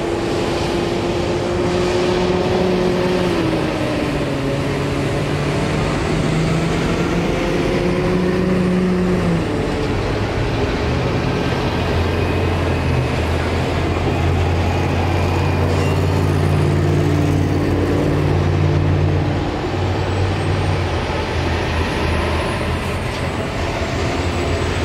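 Diesel semi-trucks (tractor-trailers) passing close by on the road, with their engines running under load and tyre noise from the traffic. The engine note drops in steps a few times.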